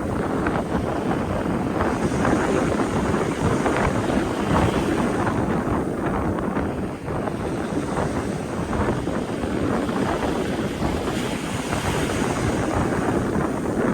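Strong wind buffeting the microphone in gusts, over the rushing of sea waves breaking on the shore.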